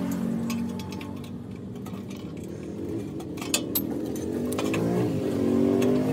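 A motor vehicle's engine running, its pitch rising over the last couple of seconds, with two sharp metal clinks about three and a half seconds in as a rusty sheet-metal drum is handled.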